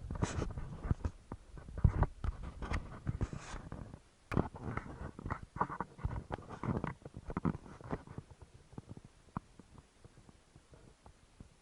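Irregular clicks, knocks and scraping of objects being handled, thinning out after about eight seconds.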